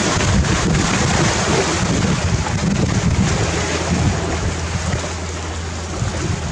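Sea waves breaking and washing over a gravel-and-pebble beach, a steady rush of surf, with wind buffeting the microphone.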